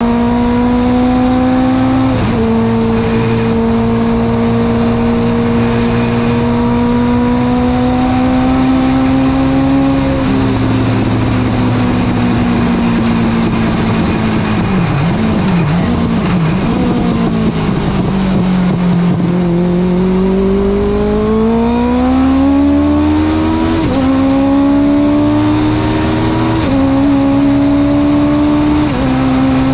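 Legends race car's Yamaha four-cylinder motorcycle engine, heard from the cockpit: it runs at steady part-throttle revs with a brief dip about two seconds in, eases off and wavers around the middle as the car slows, then revs rise again with three quick upshifts near the end. A steady haze of wind and road noise sits under the engine.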